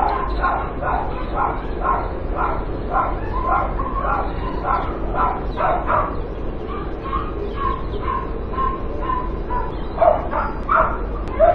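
Dogs barking over and over, about two barks a second, with a stretch of steadier higher-pitched whining in the middle and louder barks near the end.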